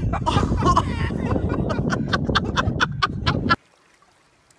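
Wind buffeting a phone's microphone outdoors, with a person's voice and a quick run of sharp clicks; it all cuts off suddenly about three and a half seconds in, leaving near silence.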